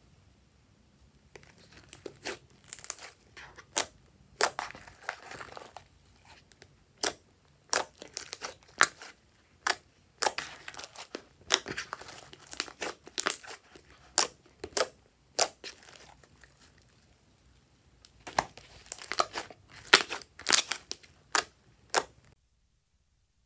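Slime being squeezed, stretched and pressed by hand, giving clusters of irregular sharp crackles and pops. There is a lull about two-thirds through, and the sound stops shortly before the end.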